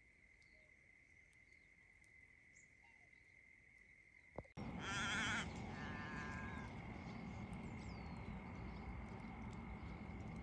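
Black swans calling: one wavering call with many overtones about halfway through, then a shorter, steadier call. A faint steady high tone and a few small bird chirps run underneath.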